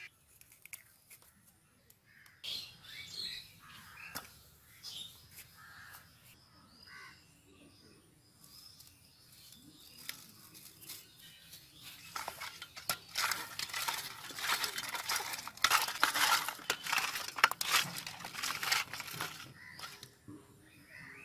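Hands rubbing salt into whole koi fish (climbing perch) in a steel plate: a dense run of scratchy, crackling rubs, loudest in the second half.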